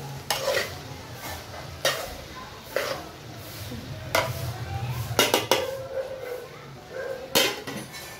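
Metal spatula stirring chopped okra and onion in an aluminium pot, knocking and scraping against the pot roughly once a second, with a quick run of clinks about five seconds in and a louder metal clank near the end.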